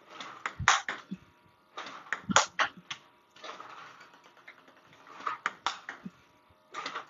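Table tennis rally: the celluloid-type ball bouncing on the table and being struck with a rubber-faced paddle in forehand loop drives, a quick run of sharp clicks and knocks in a few bursts with short gaps between.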